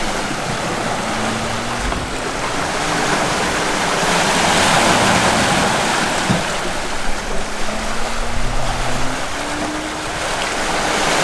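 Water rushing and splashing along the hulls of a sailing catamaran under way at speed, with wind, swelling about halfway through. A faint hum rises and falls in pitch beneath it.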